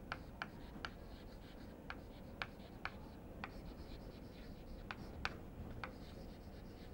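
Chalk writing on a chalkboard: faint, irregular sharp ticks as the chalk strikes and strokes the board, about one or two a second.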